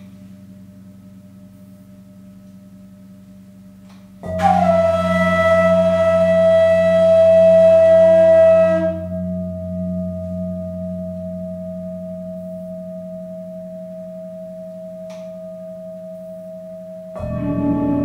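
Gongs and singing bowls ringing in a low sustained hum. About four seconds in, a long, breathy flute note enters over it and stops abruptly some five seconds later, while a bowl tone at the same pitch rings on and slowly fades. Near the end a gong is struck and rings out.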